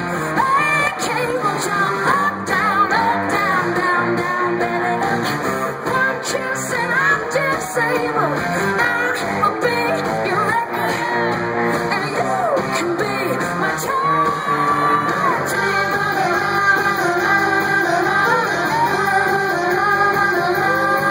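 Live rock band playing: a woman singing over electric guitars and drums.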